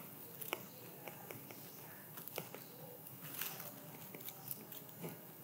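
Faint, irregular clicks and taps of a stylus tip on a tablet's glass screen as it writes, over low room hiss.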